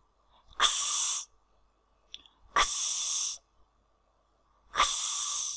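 A teacher's voice making the phonics sound of letter X, a crisp "ks", three times with pauses between for repeating. Each one is a sharp click followed by a hiss of well under a second.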